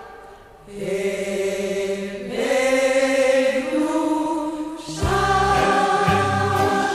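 Background music: after a brief lull, a choir sings long held notes, and about five seconds in a steady drum beat comes in under the voices.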